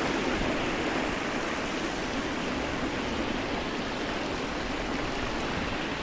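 Water splashing and pouring steadily from a children's pool's fountains and water-play features, switched on and running.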